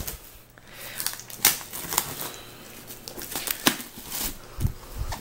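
Plastic wrapping on a new paperback book crinkling and crackling as it is handled and pulled open by hand, in quick irregular clicks and rustles, with a couple of dull thumps near the end.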